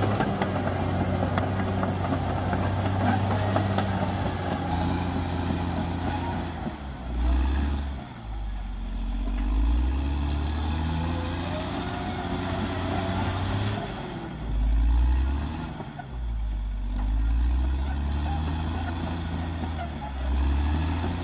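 Caterpillar D6R XL bulldozer's diesel engine running steadily at first. From about seven seconds in, its pitch repeatedly sags and rises again as the load on it changes, with surges in loudness.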